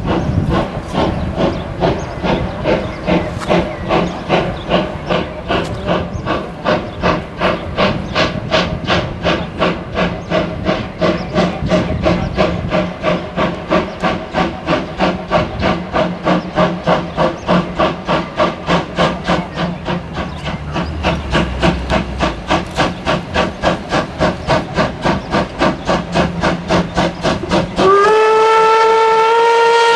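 Steam express locomotive 01 519 working under load, its exhaust beats at a steady rhythm of about three a second. Near the end the whistle starts a long single-pitched blast, sliding up slightly in pitch as it opens.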